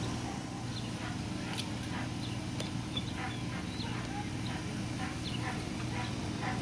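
Long-haired Weimaraner puppies at rough play, giving many short, high yips and squeaks over a steady low hum.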